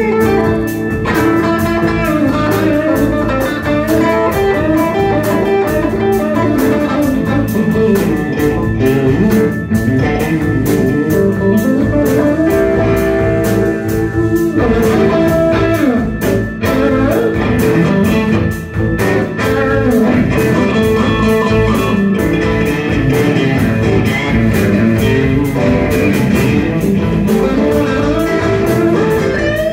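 Live blues-rock band playing an instrumental passage: an electric guitar lead with bent, gliding notes over bass guitar and a Tama drum kit.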